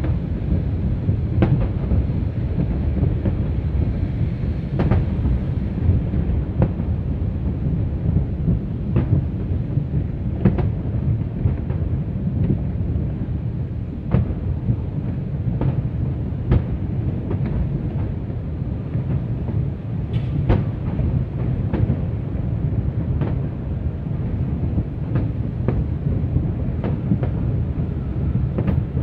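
Distant aerial fireworks going off, a string of sharp bangs every second or two over a steady low rumble.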